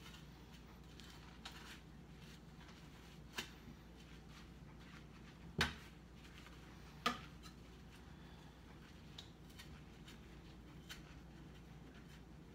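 Dishes and utensils being handled while washed by hand at a sink: scattered light clinks and three sharp knocks, the two loudest about five and a half and seven seconds in, over a low steady hum.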